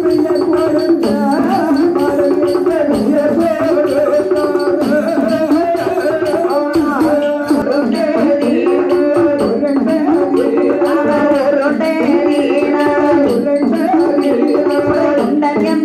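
Villupattu bow-song music: a sung melody over percussion, including the beaten bow with its bells, keeping a steady rhythm.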